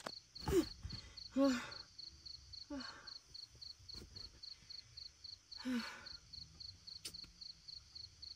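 Crickets chirping in a steady, even pulse, about three to four chirps a second. Four short, low voice sounds with a falling pitch break in over it at intervals and are the loudest sounds.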